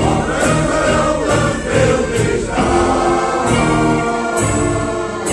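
Men's shanty choir singing together with accordion accompaniment, over a regular percussive beat.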